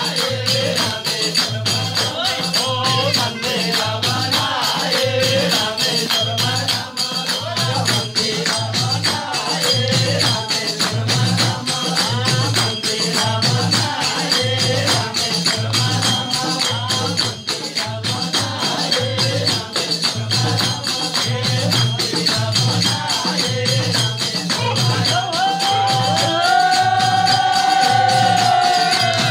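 Live Nepali devotional bhajan: voices singing over a hand drum beating a steady rhythm about once a second and constant jingling percussion like small cymbals or a tambourine. Near the end a voice holds one long note that falls away.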